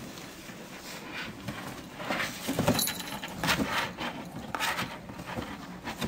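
Cardboard boxes rustling and scraping as a cat pushes its head in among them, in a run of short scuffles that are loudest in the middle.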